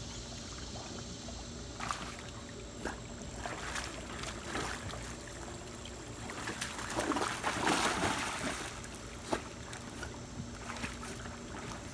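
Pool water lapping and splashing around a swimming golden retriever, with a few short knocks and a bigger, longer splash about two-thirds of the way through as the dog goes off the pool ramp back into the water.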